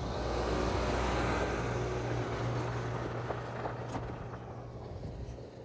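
John Deere 7R 310 tractor's diesel engine running steadily as it pulls a fertilizer spreader away, the sound fading over the last couple of seconds.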